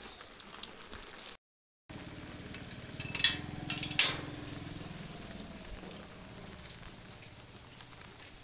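Steady hiss of rain falling on a wet lane. A scooter's engine hums low as it rides away, and two sharp metallic clanks of an iron gate being latched come about three and four seconds in.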